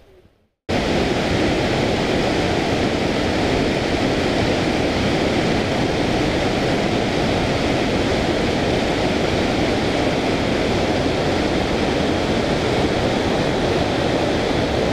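Steady, loud rushing of a fast white-water mountain river over stones, starting abruptly just under a second in.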